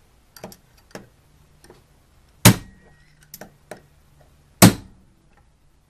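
Heavy hammer striking the body of a combination lock: a few light knocks, then two hard blows about two seconds apart, each with a brief ring. The blows are splitting the lock's case without defeating its locking mechanism.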